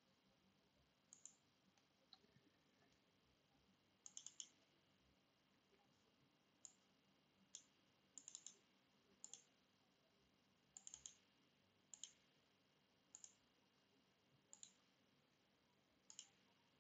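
Faint computer mouse clicks, scattered single clicks and some quick double-clicks, against a near-silent room.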